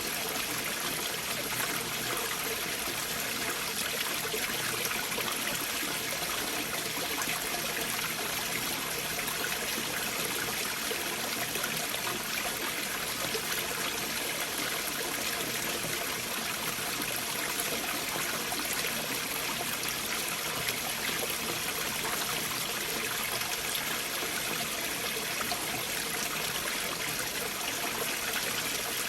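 Stream water flowing steadily through gaps between large boulders: an even, unbroken wash of water noise with no breaks or changes.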